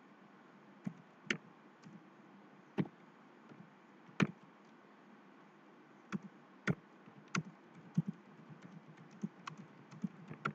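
Typing on a computer keyboard: irregular keystrokes, a few louder than the rest, with short pauses between runs of keys.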